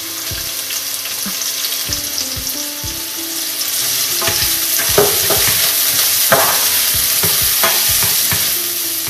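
Diced onion sizzling in hot oil with cumin seeds in a non-stick frying pan, stirred with a spatula that scrapes and taps against the pan a few times. The sizzle grows louder about halfway through and eases a little near the end.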